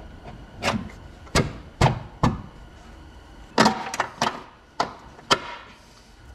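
A new upper control arm on a 2012 Dodge Charger clunking and knocking against its mounts and the body while it is worked into place by hand: about nine sharp, separate knocks spread over several seconds.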